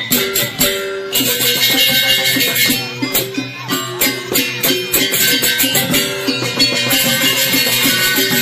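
Joged bumbung bamboo gamelan playing: struck bamboo xylophones (grantang) in fast, dense interlocking patterns. The ensemble comes in loudly right at the start and swells again about a second in.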